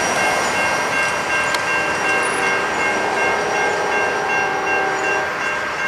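Rolling auto-rack freight cars clattering past and away on the rails while the grade-crossing signal bell keeps ringing. About two seconds in, the distant lead locomotives sound a horn blast of about three seconds.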